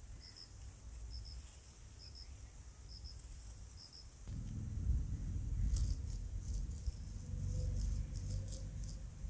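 Faint insect chirping in short pairs of notes, a pair about every second. About four seconds in a low rumble sets in, with crisp clicks and scrapes as a knife cuts through raw beef on a wooden board.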